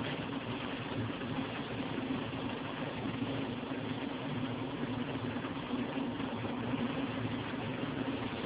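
Round stainless-steel vibrating sieve running with sand on its mesh: a steady machine hum under a dense, even hiss of the sand jittering on the screen.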